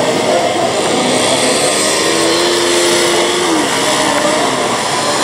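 Several Kawasaki KLX250 single-cylinder military dirt bikes running at low speed, their engine notes overlapping. One engine holds a steady pitch for about a second and a half, then drops away about three and a half seconds in.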